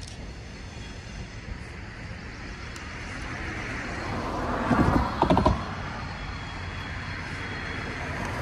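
Train rolling past over a steady low rumble. Its wheels clack over a rail joint in a quick cluster of knocks about five seconds in.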